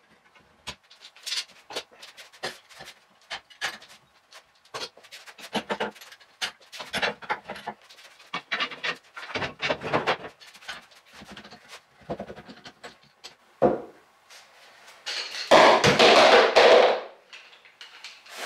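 Workshop handling noise, sped up: steel F clamps being unscrewed and lifted off a glued wooden frame, with a string of quick knocks, clicks and clatters. About fifteen seconds in comes a louder, longer rustling scrape lasting a couple of seconds.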